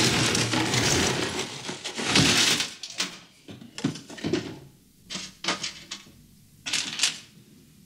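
Rough chunks of mineral ore dumped onto a stainless steel sink drainboard: a dense stony clatter on metal for about two and a half seconds, then half a dozen separate knocks and clinks as single stones are set down or settle.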